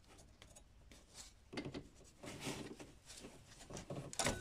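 Rubber multi-rib drive belt being worked off a grooved pulley by hand: a few short, faint rubbing scrapes, the loudest near the end.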